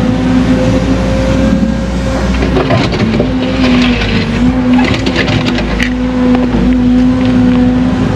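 Excavator's diesel engine and hydraulics running steadily under the operator's seat, with a constant hum. From about two and a half to six seconds in, scraping and clattering as the bucket digs through rocky dirt.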